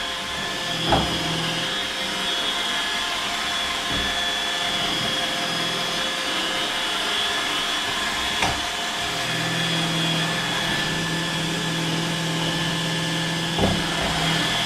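iRobot Roomba 880 robot vacuum cleaning, a steady motor whine with fixed tones. Three brief knocks stand out: about a second in, about two thirds of the way through, and near the end.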